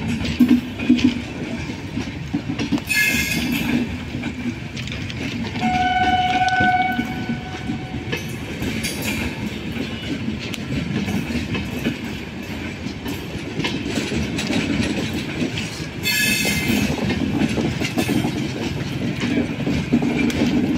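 Passenger train coaches rolling past as the train arrives, a steady rumble with wheels clattering over rail joints. A train horn sounds once, for about a second, about six seconds in.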